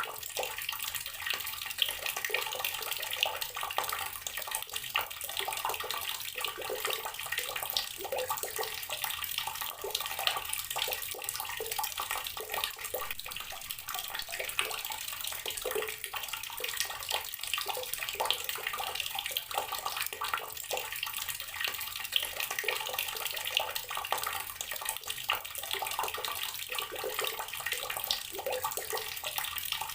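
Garden water tap running steadily, its stream splashing with a constant patter of small droplets.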